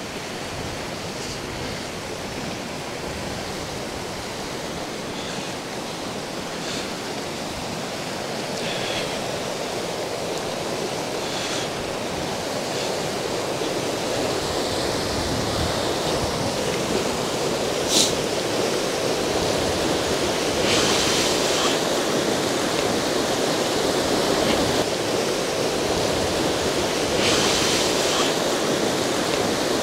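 Baspa River water rushing steadily over its partly frozen bed, growing somewhat louder partway through. A single sharp click sounds about two-thirds of the way in.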